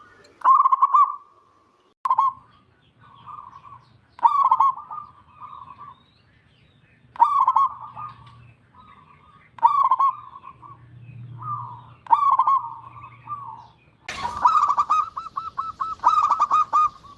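Perkutut (zebra dove) cooing: short bubbling phrases repeated every two to three seconds, breaking into a faster run of notes near the end. The bird is singing readily, the lively 'gacor' song used to prompt reluctant perkutut to sing.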